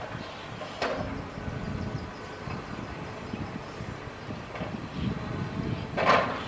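Hitachi hydraulic excavator's diesel engine running steadily under load as the machine swings its boom. Sharp knocks punctuate it, a lighter one about a second in and a louder one near the end.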